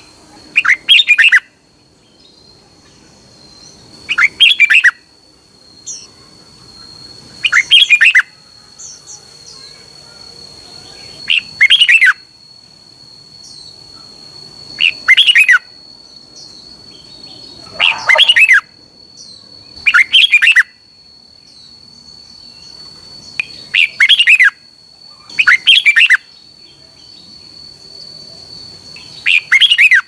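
Red-whiskered bulbul singing: short song phrases, about ten of them, one every three to four seconds, over a faint steady high-pitched tone.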